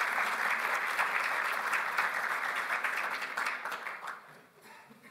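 Audience applauding: dense clapping that dies away about four seconds in, leaving a few last claps near the end.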